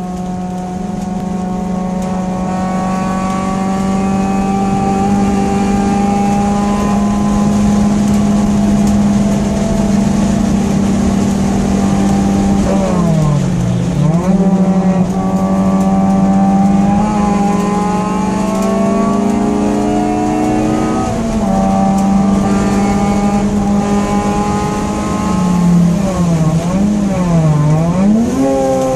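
Honda Integra DC2's four-cylinder engine heard from inside the cabin at high revs, its pitch climbing slowly under load. The revs drop and blip on downshifts about halfway through and again near the end.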